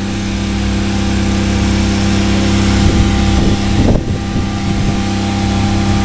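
An engine running steadily at a constant idle: an even low hum with a hiss over it.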